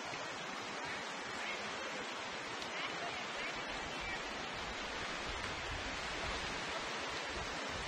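Steady rushing of river water flowing past a gravel bar, with a low rumble of wind on the microphone from about halfway.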